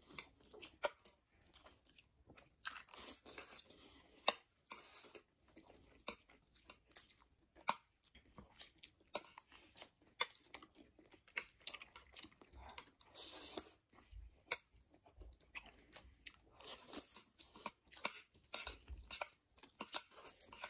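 Close-up eating sounds of spicy ramen noodles: short hissy slurps every few seconds, chewing between them, and light clicks of metal chopsticks.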